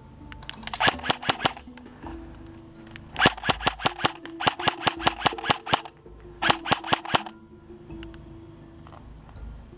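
Airsoft electric rifle firing four bursts of rapid shots, about a dozen a second, each shot a sharp crack.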